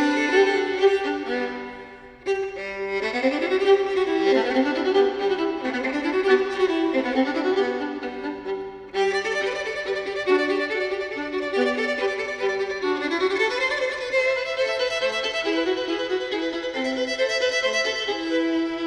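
Two violins playing a bowed duet, with moving lines over held notes. The playing fades to a brief lull about two seconds in and dips again for a moment near nine seconds before carrying on.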